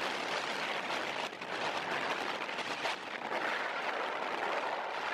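Steady, thin hiss of noise heard from inside a moving car.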